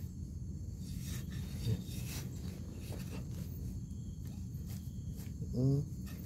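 A hand digging in loose soil, with soft scraping and crumbling of dirt as termite mushrooms are worked free and pulled up, over a steady low rumble. Just under six seconds in there is a short hum from a voice.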